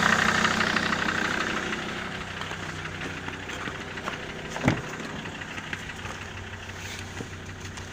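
SsangYong Rexton 2.7 five-cylinder diesel idling with a steady knock, growing fainter over the first two seconds. The knock is still there after the injectors were reconditioned and their nozzles replaced. One sharp click about two-thirds of the way through.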